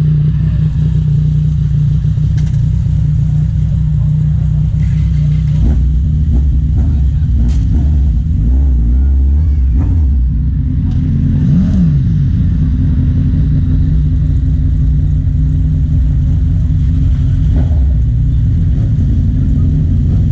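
Motorcycle engine running continuously at a steady pace with a strong, even low drone, and a brief swoop in pitch about halfway through.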